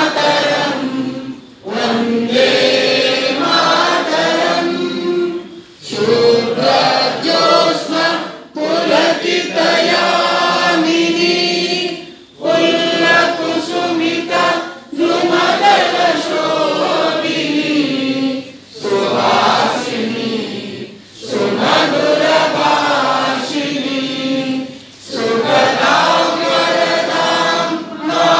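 A large group of people singing together in unison without instruments, in sung phrases of a few seconds each broken by short breathing pauses.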